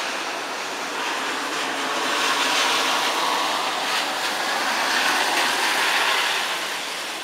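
Heavy rain falling in a storm, a steady rushing hiss that swells a little midway and eases toward the end.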